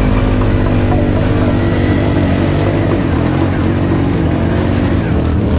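A quad's (ATV's) engine running at fairly steady revs, its pitch holding level with only a slight waver.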